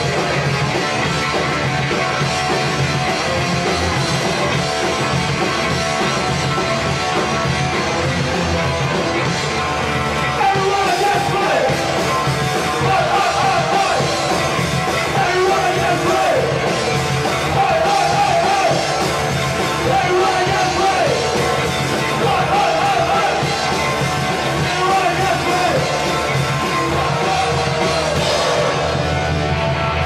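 Live punk rock band playing loudly on drums and guitar, with shouted vocals coming in phrases from about ten seconds in.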